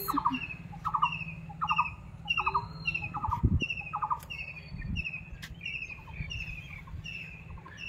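Birds calling in the trees: a short call repeated steadily, about three every two seconds, mixed with higher chirps, over a low steady rumble.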